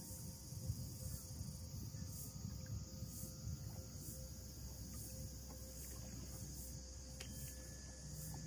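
Insects in the mangroves calling in a steady high-pitched chorus that swells about once a second, over a low rumble.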